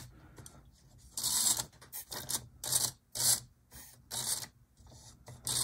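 Lifelike F7A HO-scale locomotive chassis with a pancake motor, its metal wheels scraping along the model track rails in about eight short bursts as it is worked back and forth.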